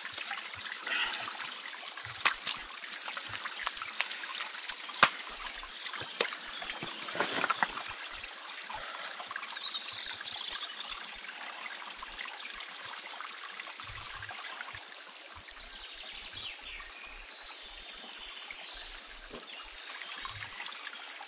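A small stream trickling steadily over stones. In the first eight seconds a few sharp knocks of loose rocks sound as someone clambers over them. Faint high chirps come later.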